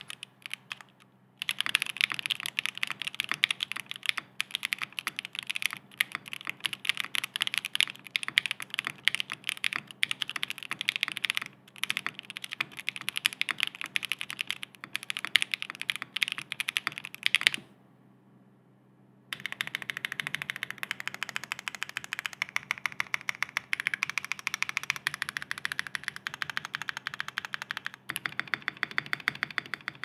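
Continuous fast typing on a KBDFans Tofu60 2.0 mechanical keyboard with stock Gateron Baby Raccoon linear switches, a carbon fibre plate, XMI Thai keycaps and no foam: a dense run of key clacks that stops for about two seconds a little past halfway, then resumes.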